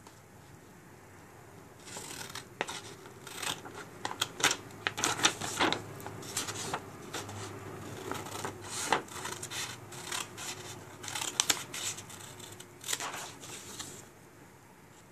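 Scissors cutting black construction paper: a run of irregular snips with paper rustling, starting about two seconds in and stopping near the end.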